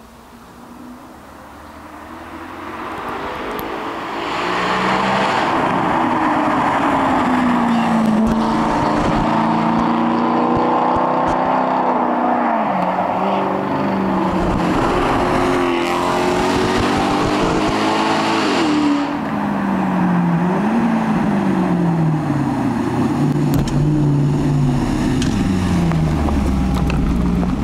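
Maserati GranTurismo S 4.7's V8 engine coming up from a distance under hard acceleration, the revs climbing and dropping again and again as it changes gear. Near the end it steps down through the gears as it slows and pulls up close.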